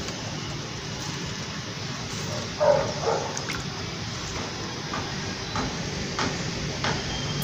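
Hands working potting soil around a plant's root ball in a small plastic pot, with faint scattered crackles over a steady background hiss. A brief louder sound comes about two and a half seconds in.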